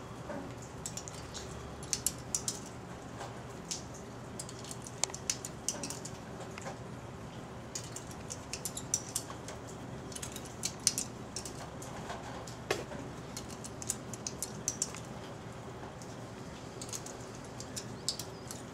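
Light clicks and clinks at irregular intervals, often in quick clusters, over a steady low hum; they are not gunshots.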